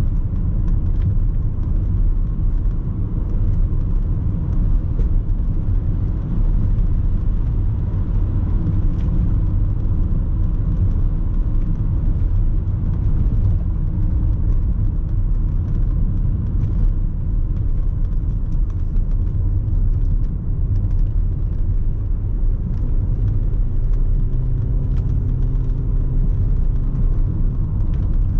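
1994 Lexus ES300 being driven, its V6 engine and tyres giving a steady low rumble, with a faint engine hum coming through over the last few seconds.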